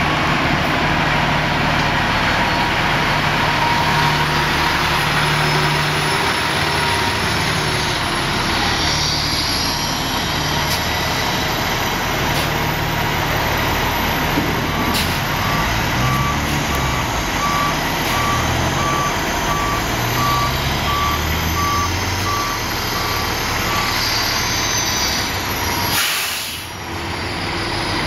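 Fire engine's diesel engine running, its revs rising and falling, with a reverse alarm beeping about once a second through the middle as the truck backs up. A short burst of hiss comes near the end.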